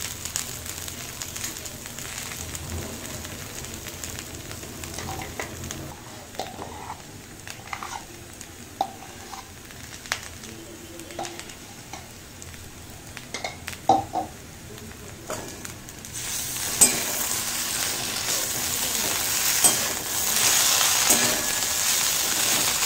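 Potatoes and drumsticks frying in a metal kadai, with a few light knocks and clicks of utensils on the pan while poppy seed paste is added. About 16 seconds in, a metal spatula starts stirring and a loud sizzle of frying rises.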